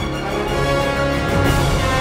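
Theme music from a film-trailer soundtrack, with sustained orchestral chords.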